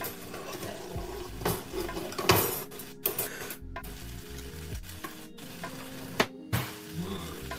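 Pot of risotto sizzling on the stove, with a few sharp knocks and clatters of utensils and dishes, the loudest a little over two seconds in. Soft music plays underneath, and the sound cuts out briefly several times.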